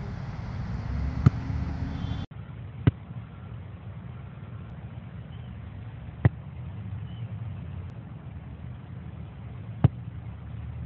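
Soccer ball kicked, four short sharp thumps about 1, 3, 6 and 10 seconds in, over a steady low rumble.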